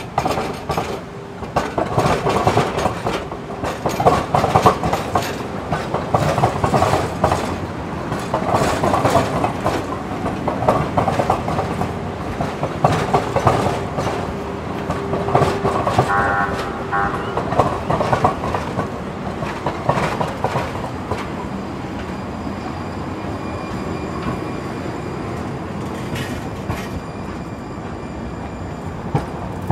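Red San Diego Trolley light rail trains passing through a track junction, their wheels knocking rhythmically over the rail joints and crossing frogs, with a brief wheel squeal about sixteen seconds in. The knocking gives way to a steadier, softer rolling rumble in the last third.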